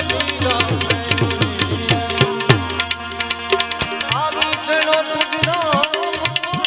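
Live Indian folk-devotional music: a harmonium holds steady notes while a tabla plays a fast, even rhythm.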